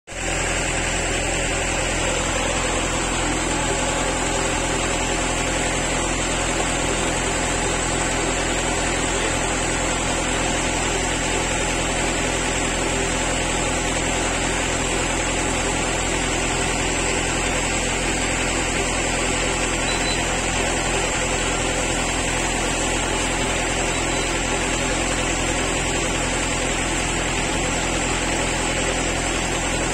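An engine running steadily at constant speed, a continuous low drone that does not change.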